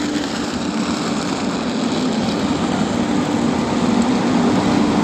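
Indian Railways WAP-7 electric locomotive drawing an express slowly into the platform: a steady hum over rolling wheel noise, growing gradually louder as it nears.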